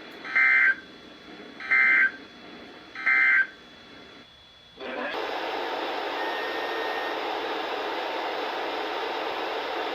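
Three EAS end-of-message data bursts from a NOAA Weather Radio receiver, each about a second long and spaced about 1.3 s apart, the signal that the alert message is over. After a brief drop-out about four seconds in, a steady hiss of radio static.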